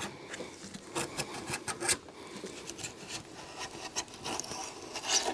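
A hand-held blade scraping and trimming the old adhesive bead off a pickup's windshield frame, a rasping scrape in short, irregular strokes.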